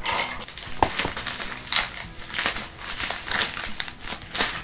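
White wrapping paper being crumpled and rustled in the hands while a package is unwrapped, with irregular crackles throughout.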